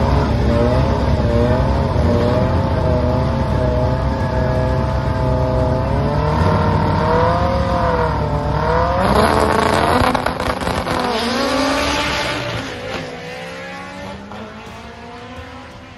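Sport-compact drag car's engine held at high revs on the starting line, its pitch wavering, then launching about nine seconds in, the revs climbing and dropping as it pulls away and fades down the track.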